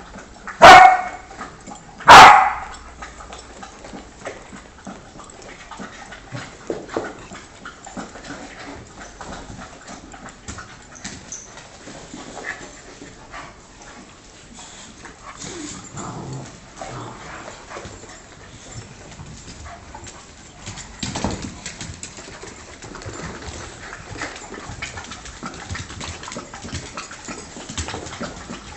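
Dogs barking: two loud barks about a second and a half apart, then quieter scattered dog sounds.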